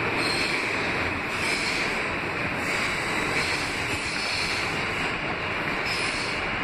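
Steady running noise of a New York City R160B subway car in motion, its wheels on the rails, heard from inside the car.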